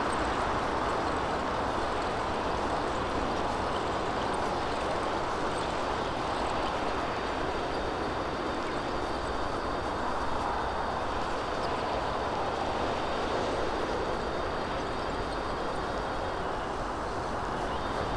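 Steady rushing noise heard from a bicycle riding in strong wind: wind on the microphone mixed with the roar of road traffic, with a low rumble underneath and no single event standing out.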